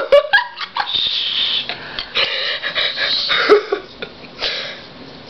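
Wheezing, breathy throat sounds from a person straining to bring up a burp. There are a few short voiced noises at the start, then a long breathy stretch.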